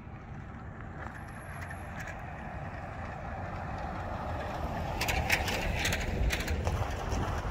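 A motor vehicle approaching, its steady road and engine noise growing gradually louder, with wind buffeting the microphone. A few sharp clicks come about five seconds in.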